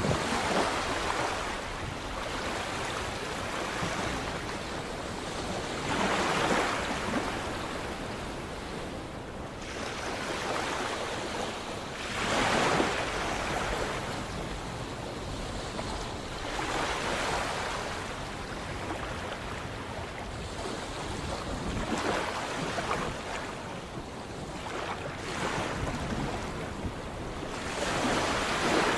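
Sea waves breaking and washing in, swelling and falling back every four to six seconds over a steady hiss of water.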